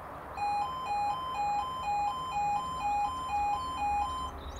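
Level crossing warning alarm: an electronic two-tone sound switching back and forth between a lower and a higher note about twice a second. It starts just after the beginning and stops shortly before the end.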